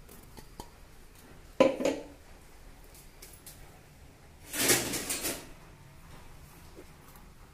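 Stainless steel bowl and spoon being handled: a sharp metallic clink that rings briefly about one and a half seconds in, then about a second of louder scraping and clattering of steel a little past the middle.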